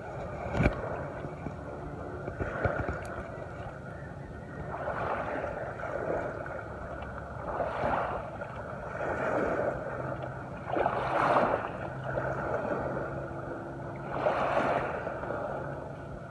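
Small waves lapping at the shoreline, washing in softly about every three seconds, with a faint low steady hum underneath.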